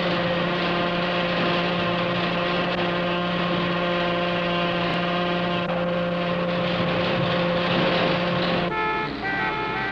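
A loud, steady horn-like warning tone at one low pitch with many overtones, starting sharply. It holds for about eight and a half seconds, cuts off, and gives way to shorter, higher tones.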